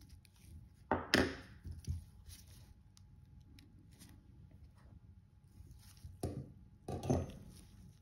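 Light knocks and clicks of small tools and watch parts handled on a watchmaker's bench. There is a cluster about a second in and another near the end, with quiet handling noise between.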